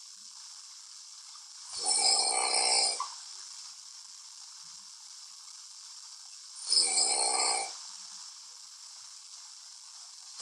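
A sleeping man snoring: two loud snores about five seconds apart, each lasting about a second, with a faint steady hiss between them.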